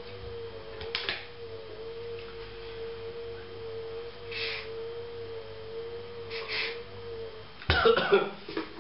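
Yerba mate sucked through a bombilla: two short slurping hisses a few seconds apart, after a single click about a second in. Near the end comes a loud clatter of handling, all over a steady, slightly wavering tone.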